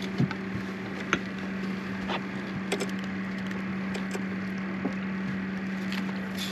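A handful of light clicks and knocks from gear being handled in a fishing boat, over a steady low hum.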